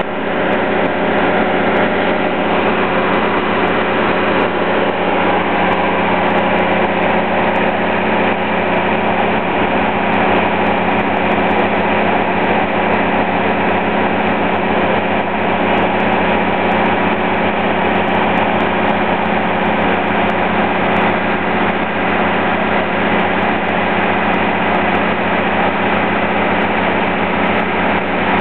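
Fire truck engine running steadily at a constant speed. About ten seconds in, a low pulsing joins it.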